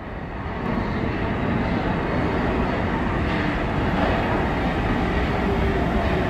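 New York City subway train pulling into the station: a steady rumble of wheels on rail that builds over about the first second and then holds.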